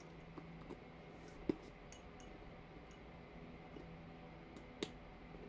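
Quiet room tone with two small sharp clicks, about a second and a half in and again near the end, from a leather purse and its metal hardware being handled.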